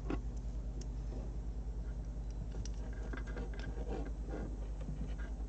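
Small scattered plastic clicks and rustles of hands working a yellow plastic RJ45 boot onto an Ethernet cable, most of them in the second half, over a steady low hum with a regular pulse.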